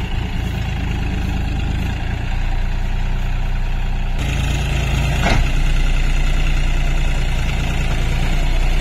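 John Deere 5050D tractor's three-cylinder diesel engine running steadily. Its note changes abruptly about four seconds in, followed a second later by one brief knock.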